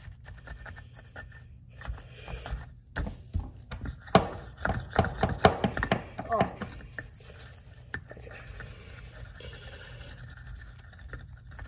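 Brush scrubbing inside a foam-soaked steel lawn mower wheel rim and hub: quick scrubbing strokes with clicks and knocks of the brush against the metal, busiest and loudest in the middle.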